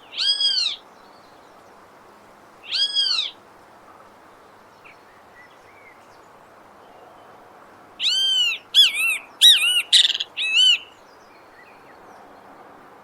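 Great kiskadee (bem-te-vi) calling: two single arched call notes a few seconds apart, then a quick run of five or six notes about eight seconds in, over faint steady background noise.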